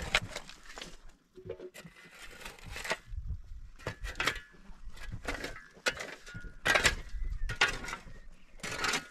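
Hand working wet mud into the joints of a stone-and-mud wall: irregular scraping and rubbing noises, about one a second, with short pauses between.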